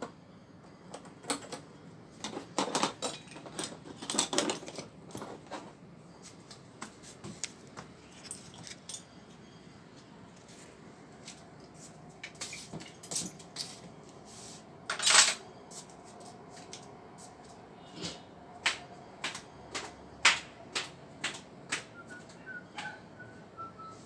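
Hand tools clinking and knocking against a refrigerator's sheet-metal cabinet as screwdriver and wrenches are handled and picked up: a series of sharp metallic clinks, bunched near the start and again later, the loudest about 15 seconds in.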